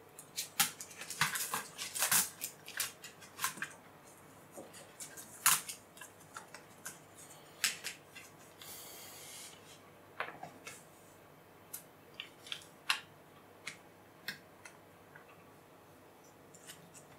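Sharp plastic clicks and snaps of a Fujitsu Siemens LifeBook E8010 laptop keyboard being seated and pressed down into its frame, many in quick succession over the first few seconds, then scattered single clicks. A brief soft hiss about nine seconds in.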